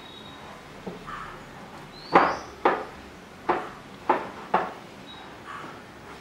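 Wheat-flour dough being mixed by hand in a glass bowl. About five sharp knocks come roughly half a second apart, starting about two seconds in.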